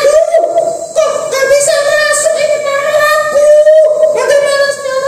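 A high voice singing a slow tune in held notes.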